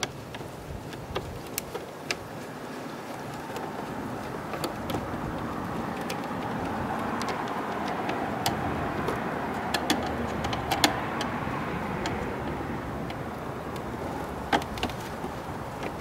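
Steady hum of road traffic, building a little toward the middle, with scattered small clicks of hands and a screwdriver working the screws of a plastic scooter handlebar cover.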